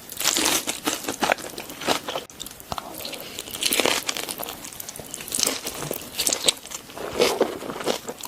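A person chewing food close to the microphone: crisp crunching and wet mouth sounds in irregular bursts every second or so, with short lulls between.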